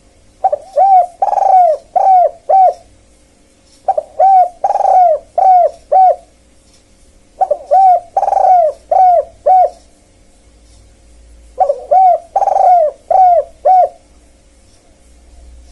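Spotted dove (tekukur) cooing, played as a lure call: four repeated phrases, each of about five notes (a short note, a longer fuller coo, then three quick notes), coming every three and a half to four seconds.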